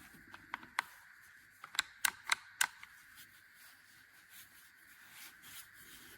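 A quick run of about eight sharp clicks, then only a faint hiss.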